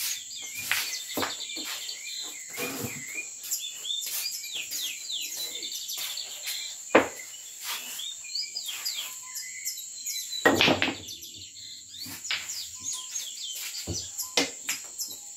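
Pool balls clacking on a sinuca table: the cue tip striking the cue ball and balls knocking together, a string of sharp knocks with a sharp one about seven seconds in and a louder, longer clatter about ten and a half seconds in. Behind them, a constant high insect drone and repeated chirping calls.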